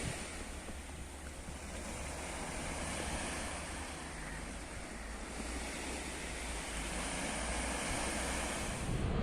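Steady rushing of sea waves with wind, swelling and easing slowly.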